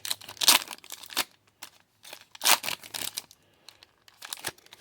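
Plastic wrapper of a trading-card pack being torn open and crinkled, in several short rustling bursts.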